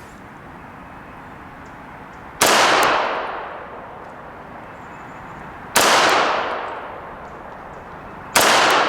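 Three slow, deliberate shots from a Sig Sauer P226 Legion SAO 9mm pistol, spaced about three seconds apart, each sharp report ringing out and fading over about a second.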